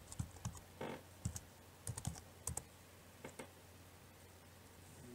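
Pencil scratching and tapping on a linden board in short strokes, shading the marked outlines: a run of faint quick clicks through the first three seconds or so, then fewer. A low steady hum lies underneath.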